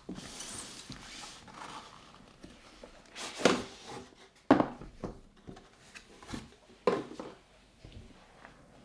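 Cardboard packaging being handled as a tablet box is opened: rustling and sliding of cardboard and paper, with a few sharp taps and knocks, the loudest about three and a half, four and a half and seven seconds in.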